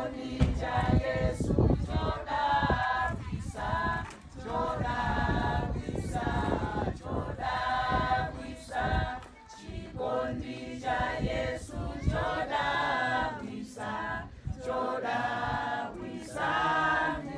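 A congregation singing a hymn together in several voices, in phrases broken by short pauses.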